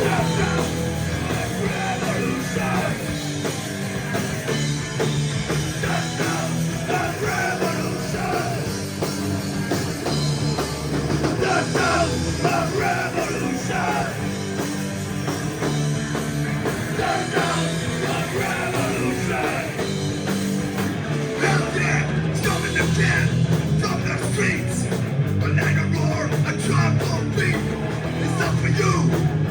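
Live hardcore punk band playing at full volume: distorted electric guitars, bass and drums, with some shouted vocals.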